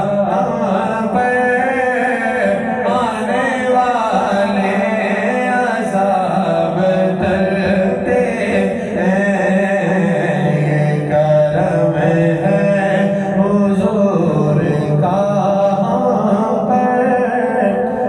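Men chanting a devotional Urdu song (naat) in a wavering melody over a steady low drone, without a break.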